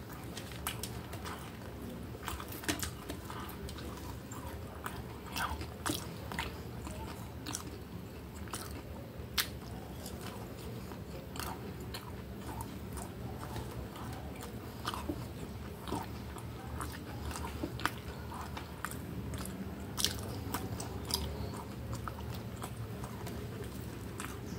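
Close-up mouth sounds of a person eating french fries by hand: biting and chewing with irregular crunches and wet clicks, over a faint steady low hum.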